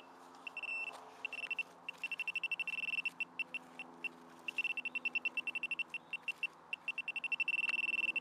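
Metal-detecting pinpointer probe beeping as it is swept over the ground to locate a buried target, an iron ring. The single high tone comes in runs of rapid beeps that start and stop, and near the end it settles into an almost continuous tone as the probe sits right on the target.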